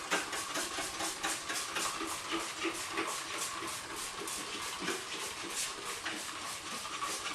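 Trigger spray bottle of 409 cleaner squirted over and over in quick succession, a string of short hissing sprays about four a second. The cleaner is being sprayed around the bead of a freshly inflated 22.5-inch tire to check for air leaks.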